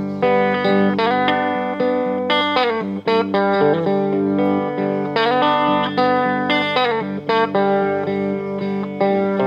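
Live guitar instrumental break in a song, with single plucked notes played over held low notes and no singing.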